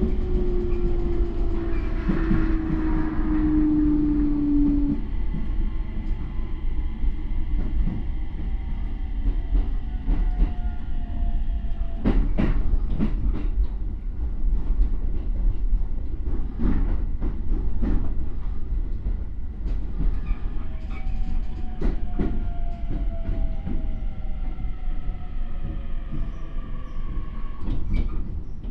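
Onboard running sound of a Toei 10-300 series electric train with Mitsubishi IGBT VVVF inverters. The inverter and motor whine falls slowly in pitch as the train slows, over a steady wheel rumble and scattered rail-joint clicks.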